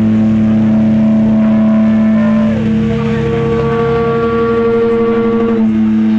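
Electric guitars held through amplifiers in a distorted drone, several notes sustained at once. About two and a half seconds in a higher note slides down a little and is held for about three seconds before dropping out.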